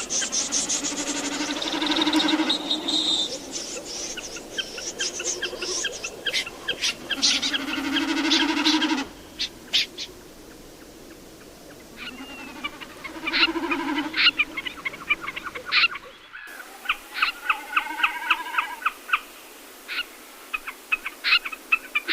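Recorded calls of snipe and other migratory birds, used as a lure for night net trapping: dense, fast, repeated harsh calls. The calls thin out briefly near the middle, and about 16 seconds in there is an abrupt splice, after which quick rattling calls go on.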